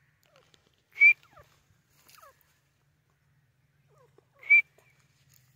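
Grey francolin calling: two loud, short, sharp notes about three and a half seconds apart.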